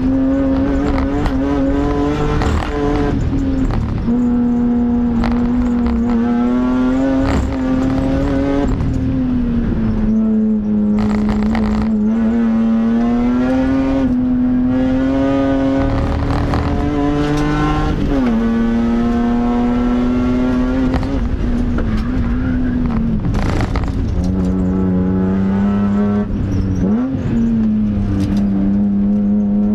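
BMW M3 track car's engine heard from inside the cabin during a fast circuit lap, its pitch climbing and easing with the throttle. It drops suddenly at a few gear changes, and there is a quick blip of revs near the end.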